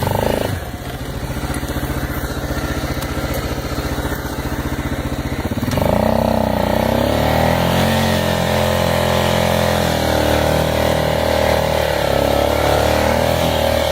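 Yamaha Grizzly 600 ATV's single-cylinder four-stroke engine running at low revs, then about six seconds in the throttle opens and it holds at higher revs with a slightly wavering pitch as the machine works through deep snow.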